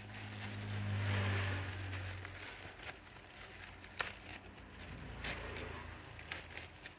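Grey plastic courier mailer bag being torn open and crinkled by hand, a tearing rustle at first, then quieter crinkling with a few sharp crackles near the end.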